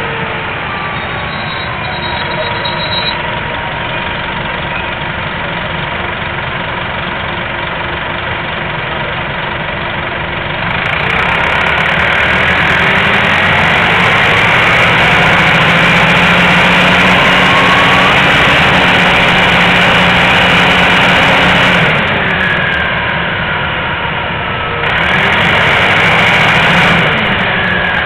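Nova Bus RTS transit bus's diesel engine, running quietly at first, then rising in level with its pitch gliding up and down as the bus pulls away through the gears. It drops back briefly and grows loud again near the end.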